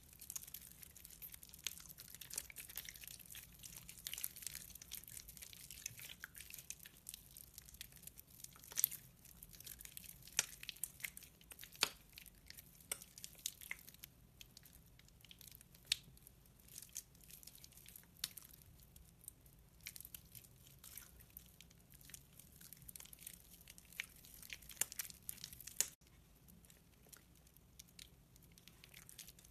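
Wet, water-soaked soap being squeezed and crumbled by hand: a steady, irregular wet crackling and squishing, with sharper crunchy snaps every few seconds.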